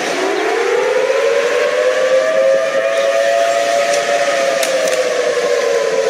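Civil defense siren winding up from a low pitch to a steady wail, sagging slightly in pitch near the end, over a steady hiss.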